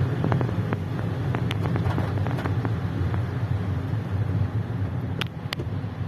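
Car cabin while driving in heavy rain: a steady low rumble of engine and tyres on the wet road, with scattered sharp ticks of raindrops striking the windscreen.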